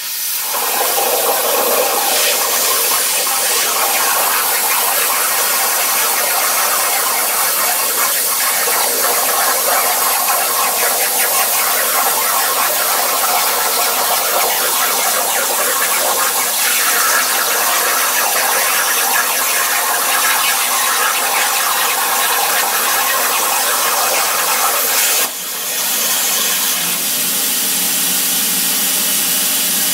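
Plasma arc of an Everlast PowerPlasma 60S cutting 3/8-inch steel through its S75 torch on a CNC water table: a loud, steady hiss that starts suddenly. About 25 seconds in the level drops briefly as the arc goes out, and a steady airflow hiss carries on.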